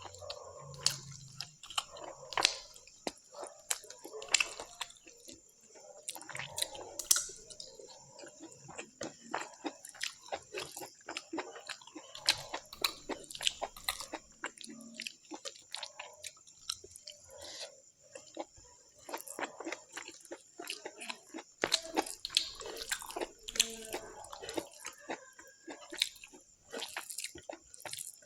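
Close-up chewing and mouth sounds of someone eating pork curry: irregular wet smacks, clicks and bites, with no words.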